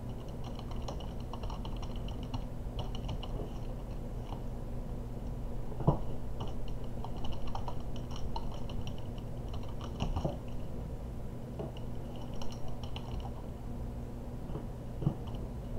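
Computer keyboard typing in short bursts of key clicks with pauses between them, over a low steady hum.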